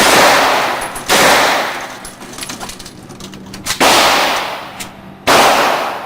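Four single 9mm gunshots, unevenly spaced, each followed by an echo that dies away over most of a second.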